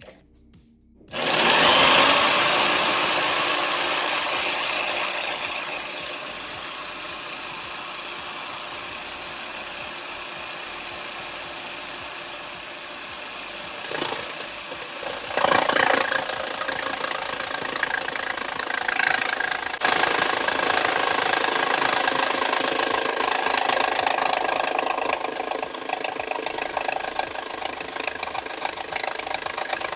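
Jigsaw starting about a second in and running on, its blade cutting through plexiglass, the noise easing after the first few seconds and growing louder again about halfway through.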